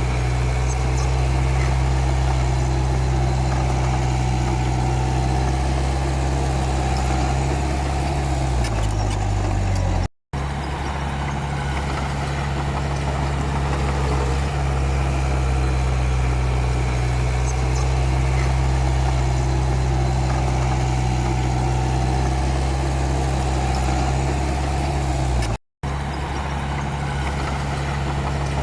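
Komatsu D31P bulldozer's diesel engine running steadily with a low, even hum; its pitch drops shortly before the sound cuts out for a moment about ten seconds in, then it runs on steadily, cutting out briefly once more near the end.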